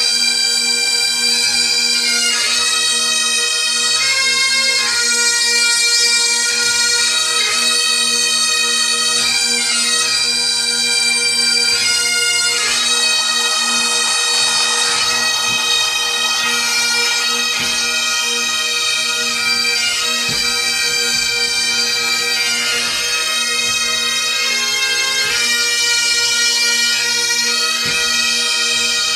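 Highland bagpipes playing a tune over a continuous steady drone.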